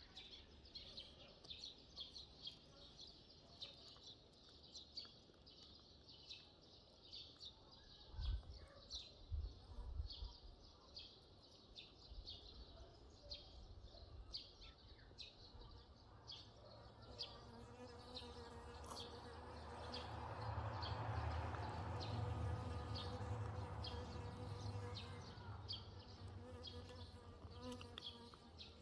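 Insects chirping steadily, about two short high chirps a second. A few low thumps come about eight to ten seconds in, and a low hum swells and fades in the second half.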